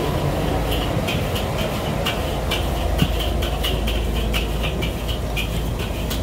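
A passing vehicle: a steady low rumble that grows heavier a couple of seconds in, with a run of quick, sharp rattling clicks, a few each second, over it.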